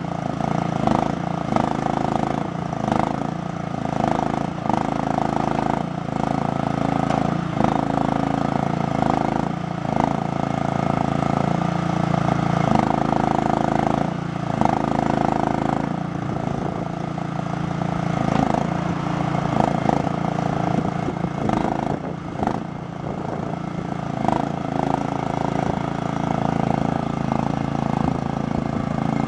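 Small engine of a compact tracked mini excavator running steadily, its note dipping and recovering again and again as the boom, bucket and tracks are worked.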